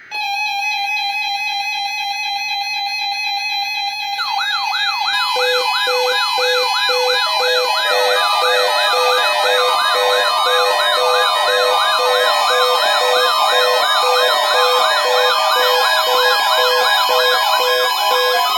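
Several NOAA weather alert radios sounding their warning alarms at once for the weekly alert test. A steady single tone starts first. About four seconds in, a fast warbling siren joins it, then repeated beeping from other receivers layers on top.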